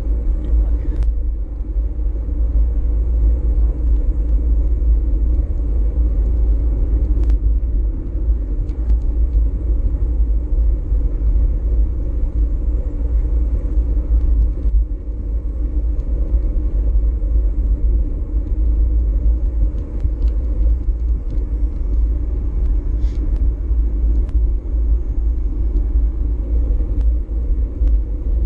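Wind buffeting the microphone of a moving bicycle, heard as a loud, steady low rumble with a lighter hum of riding noise above it and a few faint clicks now and then.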